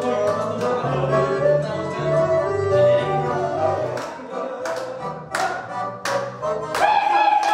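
Accordion playing a tune over a stepping bass line. Sharp hand claps come in during the second half, and a held sung note starts near the end.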